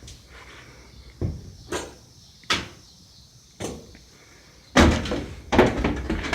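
A series of knocks and thumps: four single ones spaced about a second apart, then a denser run of bumps and rustling near the end.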